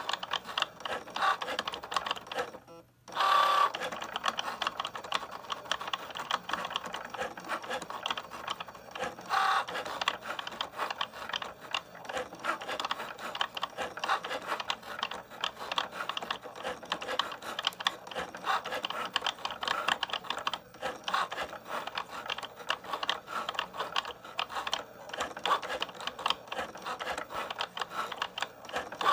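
Cricut Joy cutting machine running as it cuts a vinyl decal sheet, its motors giving a busy, rapid clicking rattle that cuts out for a moment about three seconds in.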